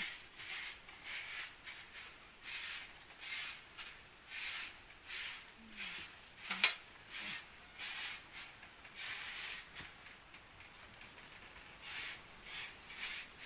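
Short grass hand broom sweeping a packed-earth floor in repeated swishing strokes, a little over one a second, with a short pause before the last few. A single sharp click about halfway through is the loudest sound.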